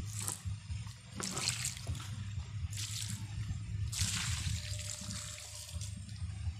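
Water poured from a bucket onto the soil and leaves around garden plants, in four splashing pours: brief ones at the start, about a second in and about three seconds in, then a longer one of some two seconds from about four seconds in. A steady low hum runs underneath.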